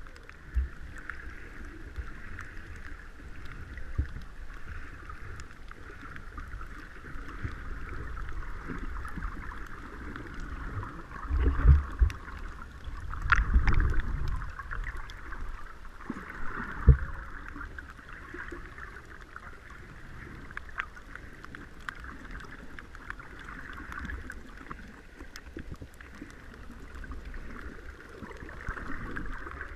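Muffled underwater water noise heard through the camera underwater: a steady hiss with low rumbling, and a few louder low thumps near the middle.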